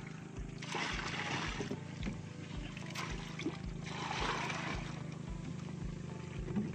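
Small boat engine idling, a steady low hum with a regular low thump about two to three times a second. Over it, two short rushes of splashing water, about a second in and around four seconds in, as the wet crab net is handled at the boat's side.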